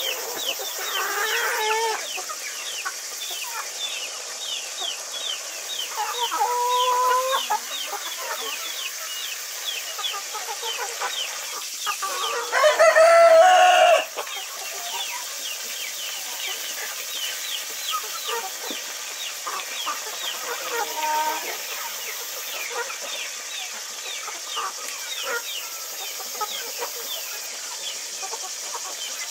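A flock of chickens calling and clucking, with one loud drawn-out call about halfway through that is likely a rooster crowing. A fast, even run of short high chirps and a steady high hiss go on underneath.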